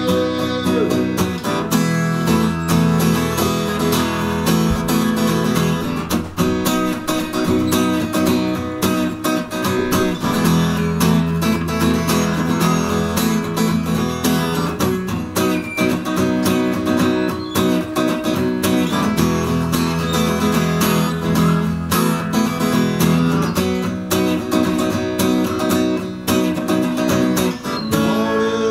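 Acoustic guitar strummed in a steady rhythm, chords ringing with no singing: an instrumental passage of a song.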